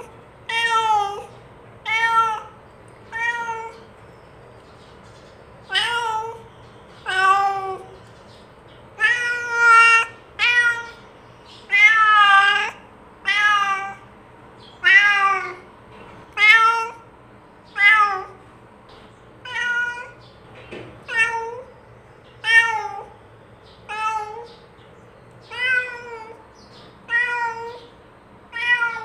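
Domestic cat meowing over and over, about twenty short meows, each bending in pitch, one roughly every second and a half.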